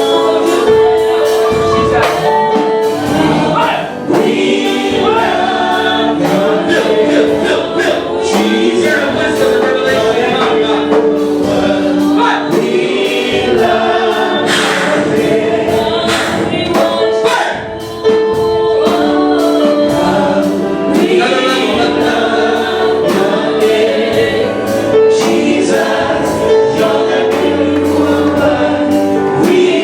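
Congregation singing a gospel worship song together as a choir, with instrumental accompaniment keeping a steady beat.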